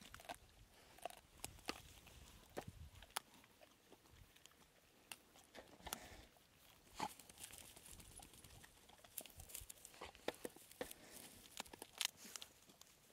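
Dry grass crackling faintly as dogs walk and nose through it: scattered small crunches and clicks.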